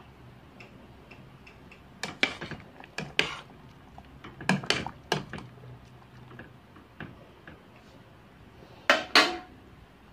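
Scattered clinks and knocks of a metal cooking pot and utensils, mostly in pairs, with the loudest pair near the end.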